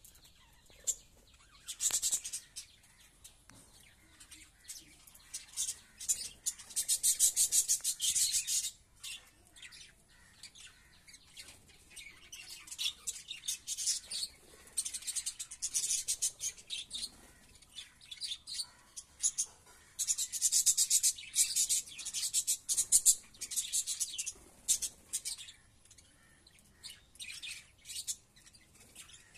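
A flock of budgerigars chirping and chattering, in bursts of rapid high chirps with quieter spells between.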